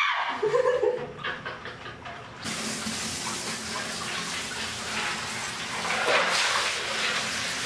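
Bathtub water sloshing and splashing, then from about two seconds in a steady rush like running water.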